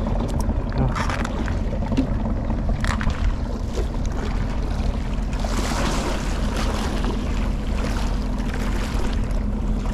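Steady low outdoor rumble with a constant low hum underneath. A few faint clicks and taps about one, two and three seconds in come from handling the spinning rod and reel.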